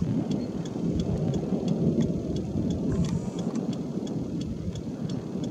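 Rain drumming steadily on a vehicle's roof during a thunderstorm, with a rapid light ticking above it.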